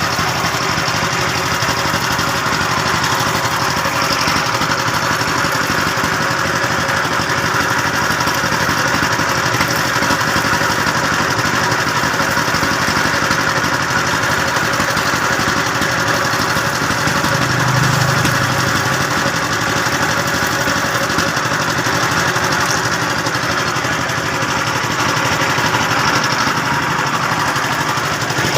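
An engine running steadily, like an idle, with a dense rattling texture and no change in speed.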